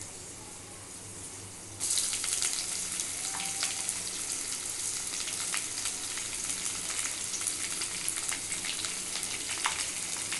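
Whole spices and cashews frying gently in hot ghee in a kadai; about two seconds in, a load of sliced onions goes into the pan and the ghee breaks into a loud, steady sizzle with scattered crackles as the onions fry.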